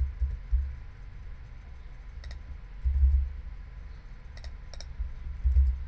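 A few sharp clicks of a computer keyboard and mouse as shortcuts are pressed, over low rumbling thumps on the microphone.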